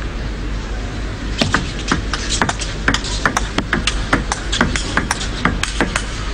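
Celluloid table tennis ball clicking off bats and table in a fast rally, about three sharp clicks a second over steady arena hiss, the clicks starting about a second in.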